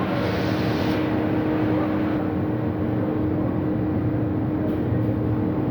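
Absorbent cotton processing machinery running: a steady mechanical drone with a constant tone.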